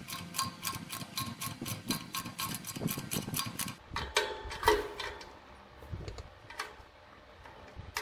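A hand tool tightening the clamping ring that holds the attic exhaust fan's blade on the new motor's shaft: quick, even metallic clicking, about five clicks a second, which stops about four seconds in. A few separate ringing metal clinks follow.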